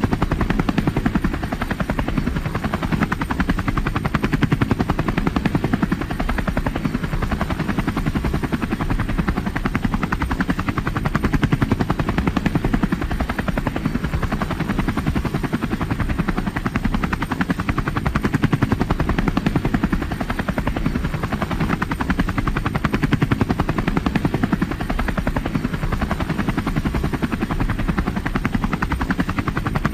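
Helicopter in flight, its rotor chopping in a steady, rapid beat with engine noise underneath.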